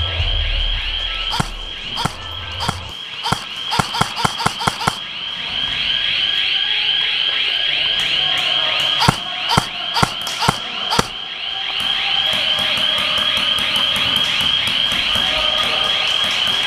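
Airsoft guns firing: single shots, then a quick run of about six shots, then a spaced series of about five louder shots. Behind them a high-pitched, fast-warbling alarm tone sounds steadily throughout.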